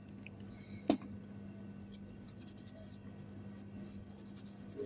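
Faint scratchy rubbing as a small M.2 SSD circuit board is scrubbed clean after its NAND flash chip was resoldered, over a steady low hum, with one sharp click about a second in.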